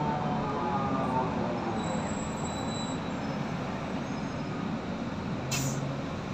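Interior noise of a Solaris Urbino 18 III articulated city bus on the move: a steady mix of engine and road noise heard from a passenger seat, with a brief sharp click or hiss near the end.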